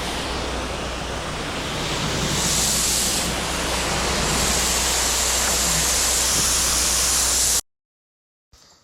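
Pressure washer spraying a steady hiss of water, with the machine's low, even hum underneath, rinsing soap out of artificial turf. The sound cuts off abruptly near the end.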